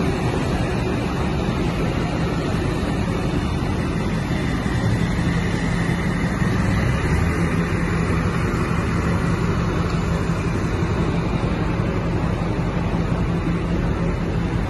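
Chevrolet Silverado pickup idling through an aftermarket exhaust with a large side-exit tip: a steady, even low rumble with no revving.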